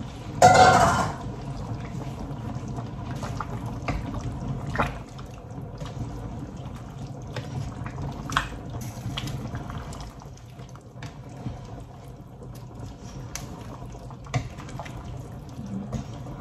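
A steel pot of red curry simmering with a steady wet bubbling, stirred with a wooden spatula that knocks against the pot now and then. There is a brief loud noise about half a second in.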